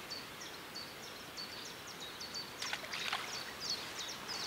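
Faint open-air background with a small songbird repeating short high chirping notes throughout. A little past halfway come two quick swishes, the feeder rod being cast.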